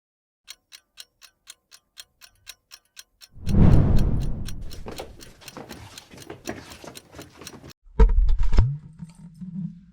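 Clock ticking quickly, about four ticks a second, with a deep boom about three and a half seconds in that fades slowly. Near the end comes a heavy low thump, then a steady low hum.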